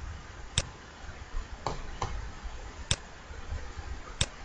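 Computer mouse clicking: three sharp clicks and two fainter ones, spaced irregularly about a second apart.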